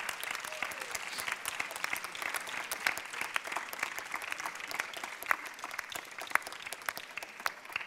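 Audience applauding, a dense patter of many claps that begins to die down near the end.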